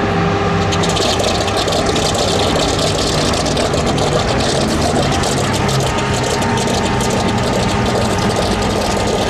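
Aircraft piston engines idling on the ground, a steady, loud run with a dense crackle over it; a faint whine steps up slightly about five seconds in.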